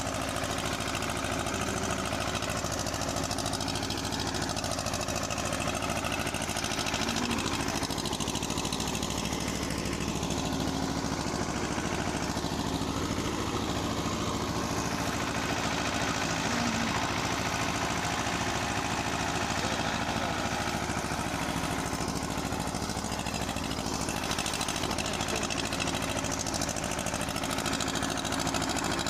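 Escort 335 tractor's three-cylinder diesel engine running steadily under load, driving a rotavator that is tilling dry soil.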